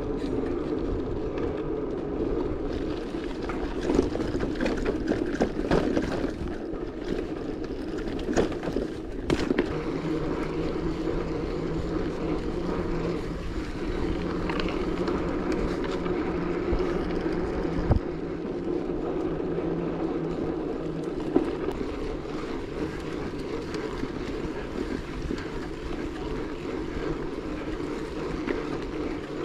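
A vehicle running steadily, with a constant low hum and a handful of sharp knocks scattered through it.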